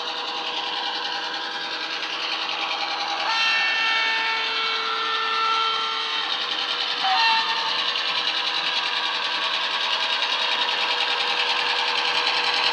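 Class 121 diesel sound from a Loksound 5 DCC sound decoder in a Murphy Models OO-gauge locomotive, played through a double iPhone speaker. The diesel engine runs steadily, growing slightly louder as the model approaches. A long horn blast starts about three seconds in, and a short second horn blast comes around seven seconds in.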